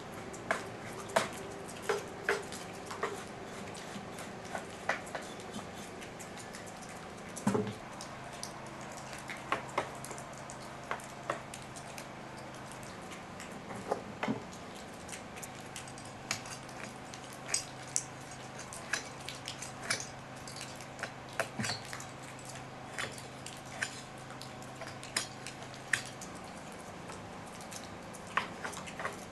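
Irregular small clicks, taps and scrapes of a hand tool and plastic parts on a STIHL chainsaw as it is cleaned by hand, with one louder knock about a quarter of the way in. A faint low hum runs under the middle part.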